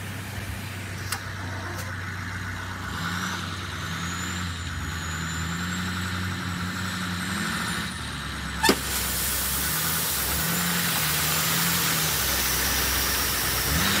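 Truck engine running as an asphalt distributor truck sprays emulsion for a chip seal, its pitch wavering slightly. A little past halfway a short sharp click, after which a dump truck's engine runs under the steady hiss of chip-seal gravel pouring from its tailgate spreader onto the fresh asphalt.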